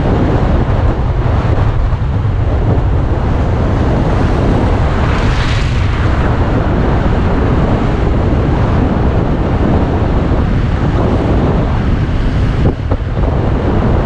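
Heavy wind buffeting on the microphone of a camera mounted on a moving vehicle, with road and engine noise under it. A brief swell rises and falls about five seconds in.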